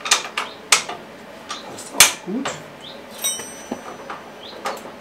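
Clinks and knocks of metal parts and hand tools being handled while an exhaust is fitted to a small engine, with one loud clank about two seconds in.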